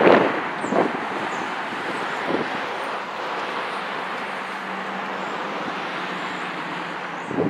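Semi truck hauling a tanker trailer through an intersection, its engine drone under a steady wash of traffic and tyre noise. A gust of wind buffets the microphone right at the start.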